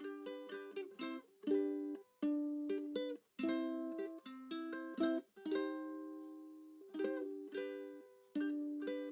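Background music: a ukulele or similar small plucked string instrument strumming and picking chords, each one ringing out and fading.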